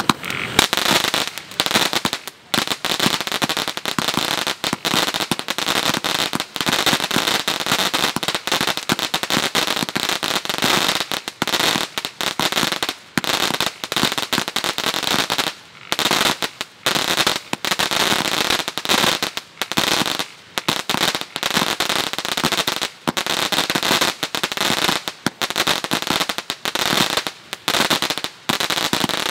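Pyro Jinja Jinja Strike 100-shot fireworks cake firing in rapid succession, a dense stream of shots and crackling breaks with a few brief gaps.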